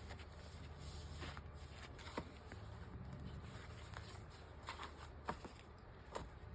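Faint rustling and a few light taps of paper pages being handled and shuffled, over a low steady hum.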